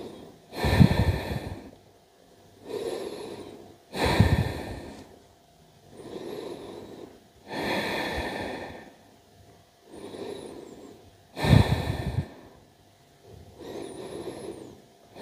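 A person breathing slowly and deeply, in and out, close to the microphone: about four full breath cycles, each about three and a half seconds long. Every other breath is louder and carries a strong rush of air.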